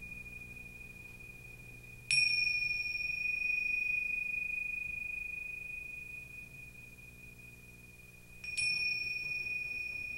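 Electronic film-score drone: a steady, high, pure tone held throughout. Two struck bell-like chimes come in, one about two seconds in and one near the end. Each rings out and fades slowly.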